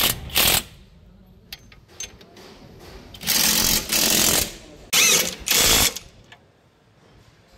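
Electric impact wrench hammering in four bursts, one long and three short, as it tightens suspension bolts.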